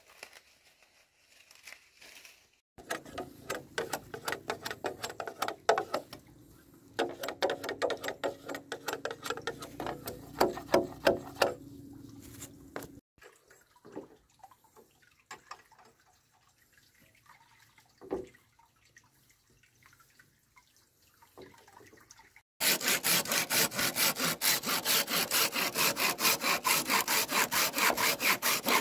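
A hand saw cutting through a green bamboo pole in quick, even back-and-forth strokes, starting about two-thirds of the way in and loudest of all. Before that, intermittent knocks and scraping.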